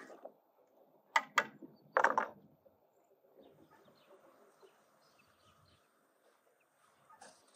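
Chickens clucking: two short loud calls just after a second in, a longer loud call at about two seconds, then softer scattered clucks.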